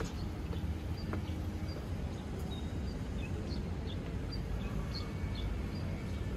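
Open-air ambience: a steady low rumble, typical of wind on a phone microphone or distant traffic, with short high bird chirps scattered through it.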